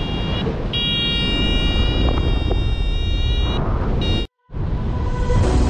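Heavy wind noise on the microphone of a paraglider in flight, with a steady high electronic tone from a paragliding variometer that sounds twice: briefly, then for about three seconds. The sound cuts out a little past four seconds in, and music starts near the end.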